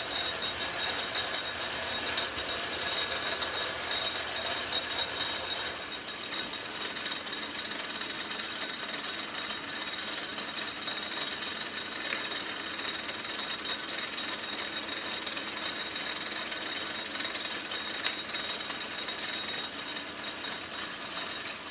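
Atlas metal lathe running in back gear on a quarter-horsepower GE electric motor, with the power feed engaged: a steady mechanical rattle of the gear train with a high gear whine. It stops abruptly near the end.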